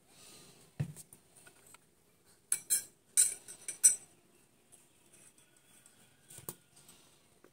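A steel spoon clinking against a glass of water as honey is spooned in. A handful of sharp clinks, the loudest cluster about three to four seconds in.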